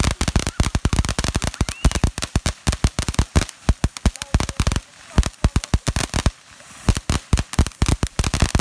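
Ground fountain firework spraying sparks with a dense run of sharp crackling pops, many a second, with a short lull about five seconds in.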